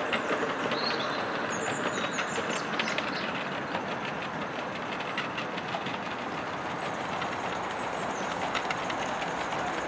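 Accucraft Hunslet 16 mm live-steam locomotive running slowly, with a steady soft chuffing and the light clicking and rattle of its goods wagons rolling over the track.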